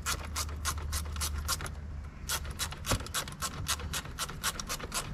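Hand ratchet clicking rapidly, about six clicks a second with a short pause near two seconds, as the bolts behind the Toyota Prado 150 steering wheel are tightened to hold the airbag module back in place.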